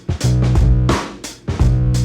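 Background music: guitar and bass with drums, on a steady beat.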